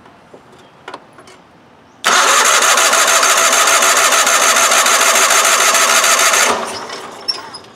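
Electric starter cranking the 1990 Wheel Horse 520H's engine for about four seconds with an even, rapid beat, then winding down without the engine catching; the fuel system is still dry, and the cranking draws fuel up through the filter.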